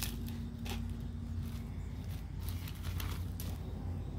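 A few faint, brief rustles of a thin plastic bag being handled, over a steady low hum.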